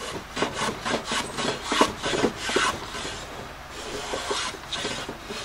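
Block plane taking short, quick shaving strokes along the edge of a wooden cabinet door, about two or three a second. It is cutting a slight bevel on the door's bottom edge to even out the reveal.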